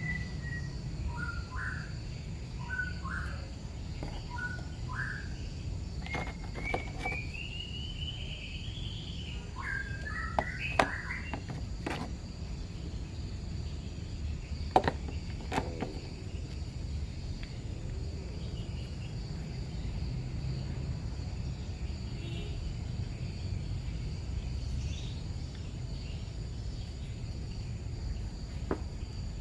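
Outdoor background of birds chirping and a steady insect drone over a low rumble, broken by a few sharp clicks or knocks, two of them louder about 11 and 15 seconds in.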